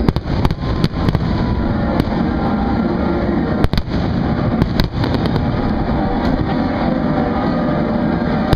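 Aerial fireworks shells bursting overhead: a continuous low rumble of booms broken by sharp crackling reports, which come in clusters near the start, around the middle and again at the end.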